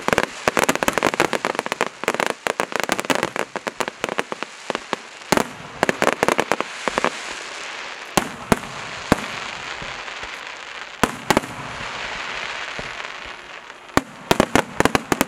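Aerial fireworks going off. For the first few seconds there is a fast, dense run of cracks, then scattered single bangs over a steady crackling hiss, and another quick run of cracks near the end.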